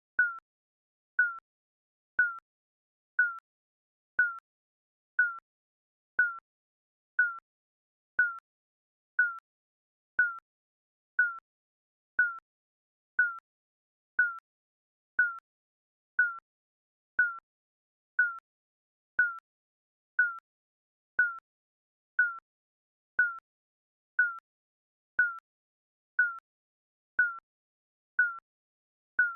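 Electronic timer beeps: one short, high beep about once a second, each dying away quickly, at a steady even pace.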